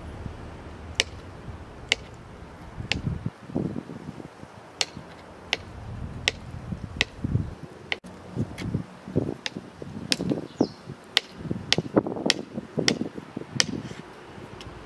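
Kitchen knife chopping a peeled potato on a plastic cutting board: sharp clicks of the blade striking the board, with duller thuds of the cuts. The strokes are sparse at first and quicken to a steady run of about two a second in the second half.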